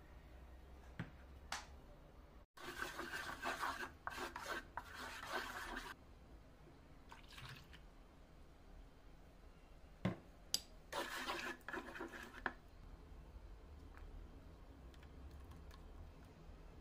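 Milk poured from a ceramic bowl onto a wooden tray, splashing and trickling in two spells, with a few sharp clicks of the bowl about ten seconds in.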